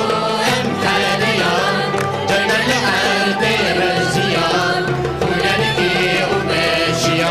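Kurdish folk song played live on clarinet, violin and a plucked lute, with a women's choir singing the melody.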